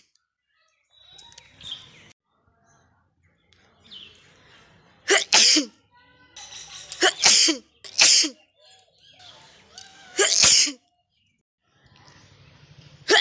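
A person sneezing, about five sharp sneezes in a row starting about five seconds in, a second or two apart, with fainter breaths and sniffs between them.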